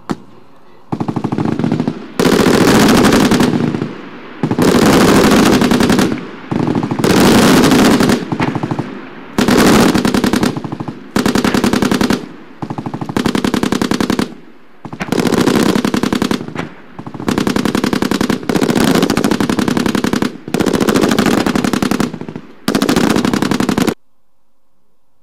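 Machine-gun fire in long automatic bursts. There are about a dozen bursts of one to two seconds each with short pauses between them, and the firing cuts off abruptly near the end.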